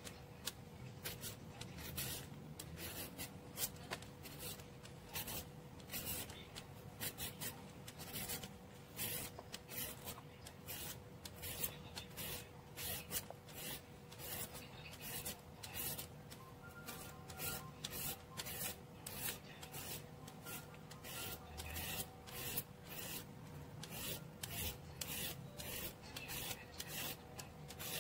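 Toothed julienne peeler shredding a whole cucumber into thin strips, in repeated quick scraping strokes about two a second.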